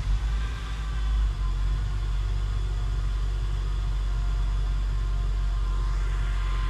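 Opel Corsa B's 1.2-litre 8-valve four-cylinder petrol engine idling cold just after being started, heard from inside the cabin. It runs a little unevenly for the first second and a half, then settles to a steady idle as it warms up.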